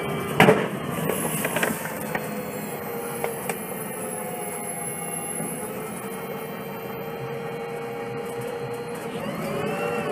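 The Cummins C Gas Plus natural-gas engine (an 8.3-litre straight-six) of an Orion VII transit bus idling with a steady whine. About half a second in it gives a sharp, loud backfire bang, then a smaller pop about a second later.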